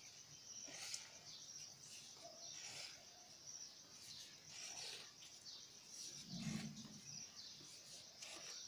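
Faint milk squirts from a goat's teat, milked by hand into a steel pot of milk: a series of short, soft hissing spurts every second or so. A steady high insect-like trill runs underneath, and a brief low sound comes about six and a half seconds in.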